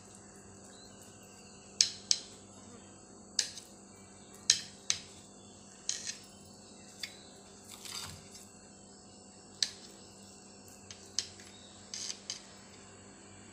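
A knife cutting through mango barfi on a steel plate, the blade clicking sharply against the metal about a dozen times at uneven intervals.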